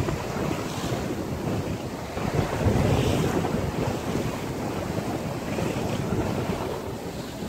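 Wind buffeting the microphone over the rush of sea water along the hull of a sailing yacht heeled under sail, swelling louder about a third of the way through.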